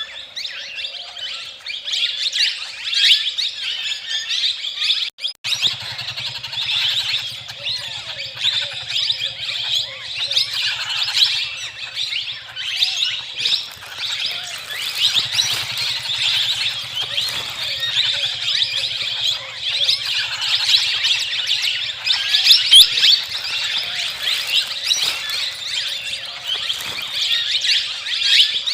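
A flock of small birds chirping continuously, with many short calls overlapping. After a brief break about five seconds in, a low steady hum runs underneath.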